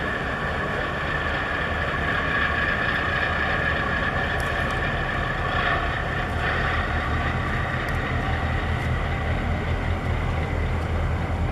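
Ship engines running with a steady low drone, a steady high whine over it.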